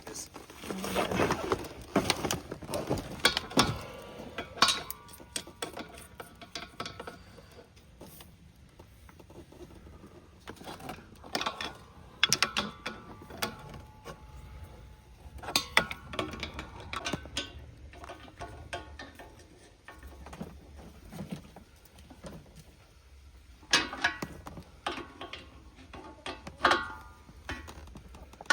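A wrench working a threaded propane-line fitting: irregular metal clicks, clinks and scrapes, some ringing briefly.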